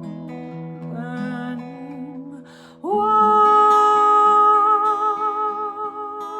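A singer's wordless held notes over strummed acoustic guitar, ending an original song; a breath is drawn about two and a half seconds in, then a louder long note with vibrato.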